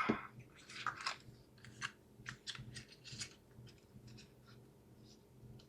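Light, scattered clicks and rustles from handling a small USB-C Ethernet adapter and its packaging, thinning out near the end.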